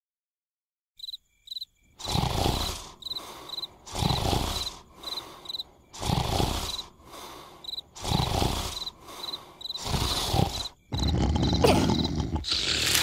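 Loud snoring, one rough snore about every two seconds, over regular cricket chirps. Near the end the snoring runs together into continuous rough noise.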